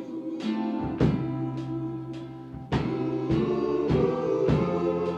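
Gospel-style music: held chords over a steady beat, with a hit roughly every half second or so.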